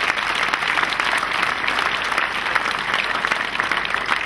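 Large crowd of people applauding, a dense steady patter of many hands clapping.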